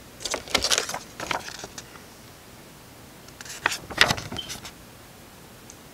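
Handling noise as a paper insert is lifted out of an open metal Blu-ray steelbook case: short rustles and light clicks in the first second and a half, and again about four seconds in.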